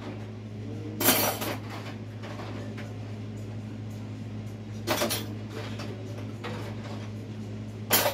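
Dishes and utensils clattering in a kitchen sink as they are washed by hand, with sharp clanks about a second in, around five seconds and again at the end, over a steady low hum.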